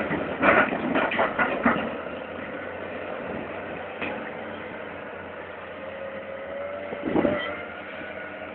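Heavy diesel earthmoving machinery running steadily, with a cluster of knocks and clatters in the first two seconds, such as stones landing while they are unloaded. A faint whine rises in pitch later on, and a short loud burst comes about seven seconds in.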